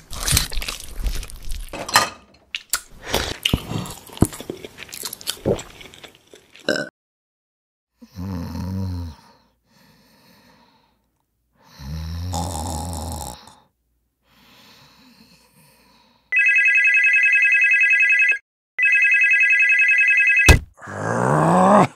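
Crisp crunching and clicking, like crunchy food being chewed, for the first few seconds. Then a sleeping man snores twice. A Panasonic corded desk phone then gives two long electronic rings.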